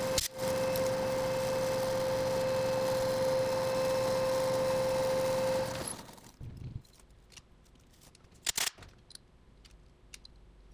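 Emco V13 manual lathe running, with a steady whine and cutting noise as a boring bar takes a cut inside the bore of an aluminium housing. About six seconds in the sound falls away as the spindle stops, leaving a low background with a sharp double clack a couple of seconds later.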